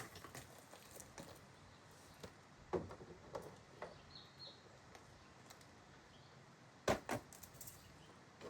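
Faint, scattered crackles and pops from a coffee maker burning with lighter fluid, the sharpest a double pop about seven seconds in. A short bird chirp comes about four seconds in.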